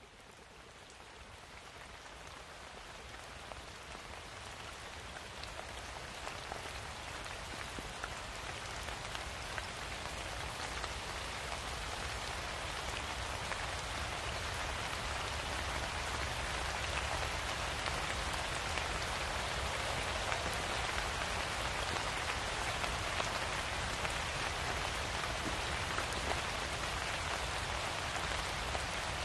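Steady rain falling on a surface, fading in gradually over the first ten seconds or so, then holding level.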